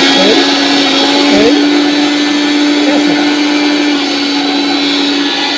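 Rico Typhoon 1200 W electric blender/grinder motor running at full speed with a loud, steady hum, its pitch dipping briefly twice in the first second and a half.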